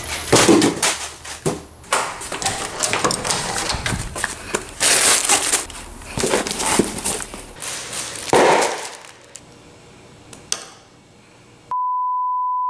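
Rustling, scraping and knocks as a cardboard shipping box is handled and picked up. About a second before the end, a steady test-tone beep starts.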